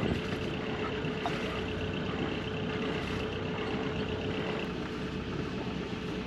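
A sailboat's inboard engine running steadily, with a constant hum.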